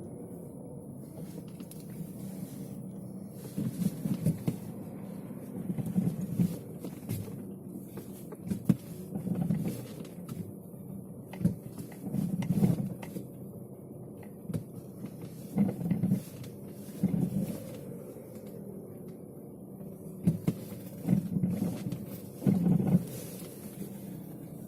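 Short knocking and rattling bursts from under a car's dashboard, about a dozen of them at irregular intervals a second or two apart, over the car's steady low drone inside the cabin.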